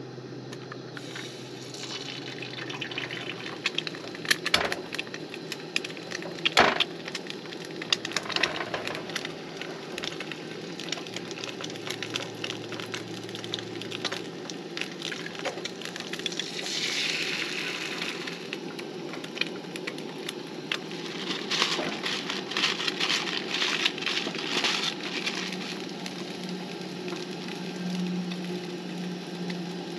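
Eggs being cracked into a frying pan on a camp stove: a few sharp shell cracks and knocks about five to eight seconds in, then the eggs sizzling and crackling as they fry, in bursts from about halfway on.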